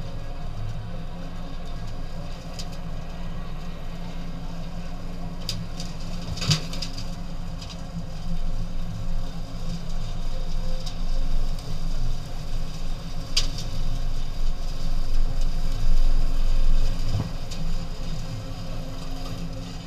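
Engine running steadily at low speed, with a couple of sharp clicks or knocks about six and thirteen seconds in, and rougher, louder running in the second half.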